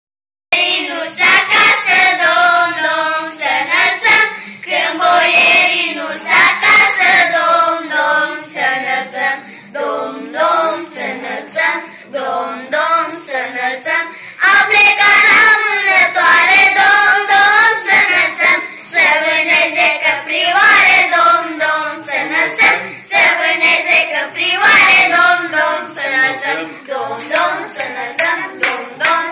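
A group of children singing a Romanian Christmas carol (colindă) together.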